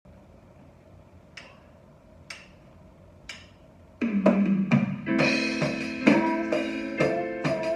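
Three evenly spaced clicks about a second apart, a count-in, then an electronic keyboard and an electronic drum kit start playing together about four seconds in, sustained keyboard chords over steady drum hits.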